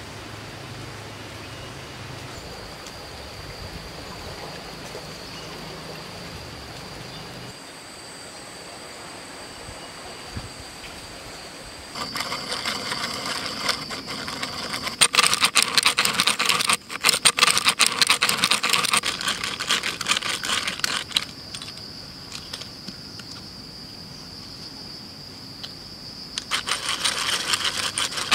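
Geared hand drill cranked by hand, its bit boring into a wooden log: a fast, dense clicking whir from about twelve seconds in to about twenty-one, and again near the end. Before and between the drilling there is a steady high-pitched whine.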